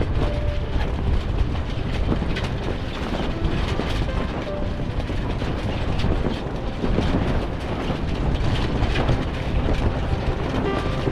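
Steady rush of strong wind and sea aboard a small sailboat, with frequent clicks and rattles from the boat's gear.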